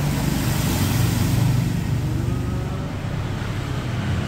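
Toyota Starlet's engine idling steadily through its newly fitted aftermarket exhaust, a low, even hum.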